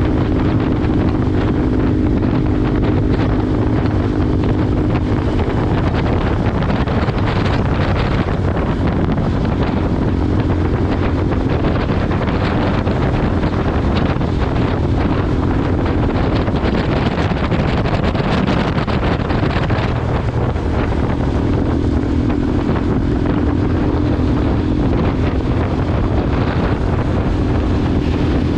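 KTM motorcycle engine running at road speed, with heavy wind noise on the microphone. A steady engine hum is clearest at first, gets buried in the wind through the middle, and comes back clearly about two-thirds of the way through.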